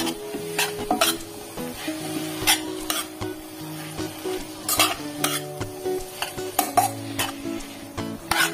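A metal spatula scraping and knocking against a wok as noodles are stir-fried, in irregular strokes over a light frying sizzle.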